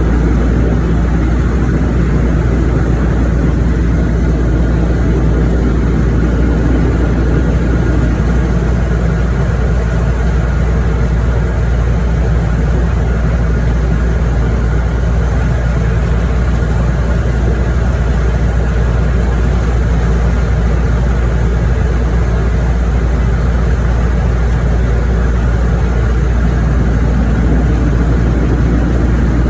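An engine running steadily for the whole stretch, with a strong, even low rumble and no change in speed.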